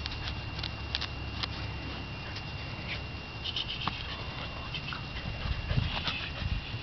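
Malinois puppy playing tug with a cloth rag on dry grass: scuffling and rustling with scattered light ticks, and a few stronger low sounds about six seconds in.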